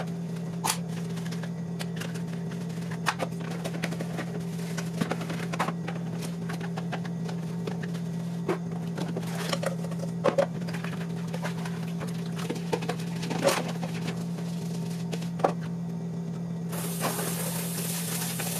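Dishes being washed by hand in a kitchen sink: scattered clinks and knocks of plates and a metal pot over a steady low hum. Near the end running water starts.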